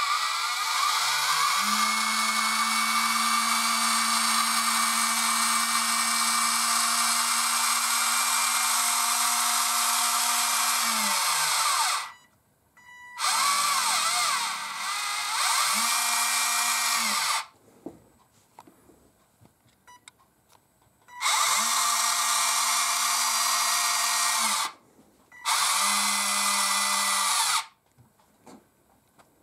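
Electric lift motor of a converted AMEWI RC forklift whining as it raises the loaded forks: one run of about eleven seconds, then three shorter runs. Each run rises in pitch as the motor spins up and drops as it stops.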